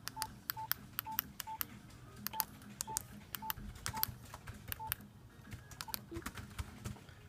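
Iridium 9555 satellite phone's keypad beeping as a number is dialled: short identical beeps, one per key press, each with a button click, about nine in the first five seconds, then a few clicks without beeps.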